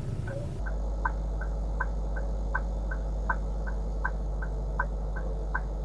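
A car's turn-signal relay ticking steadily in the cabin, a tick-tock with a louder click about every three-quarters of a second, while the car turns right. Under it a steady low hum of the engine and road.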